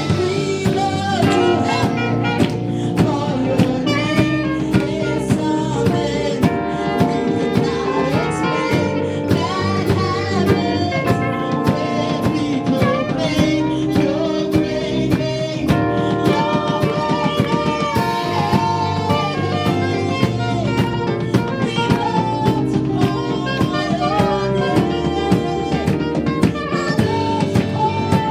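Live gospel worship band playing an instrumental stretch, melody instruments over a steady drum-kit beat.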